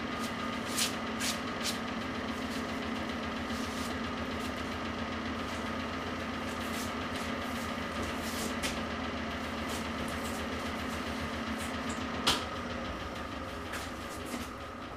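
Värnamo metal shaper's electric drive running with a steady hum, a few light clicks in the first two seconds. A sharp click about twelve seconds in, after which the hum drops away and slowly fades as the machine runs down.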